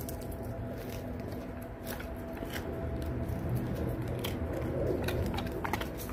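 Dogs chewing raw pig's feet and fish, with scattered sharp cracks and crunches from the bones.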